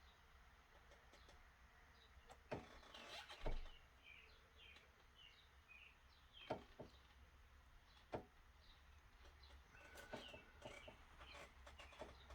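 Near silence with faint birds chirping in the background, broken by a few light knocks and clicks, about four over the first eight seconds.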